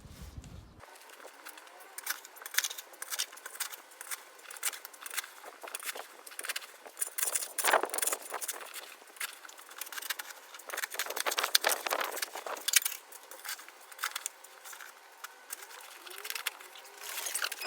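Shovel digging into stony, gravelly soil: irregular scraping and clinking of the blade against crushed stone and grit, with a few louder bursts.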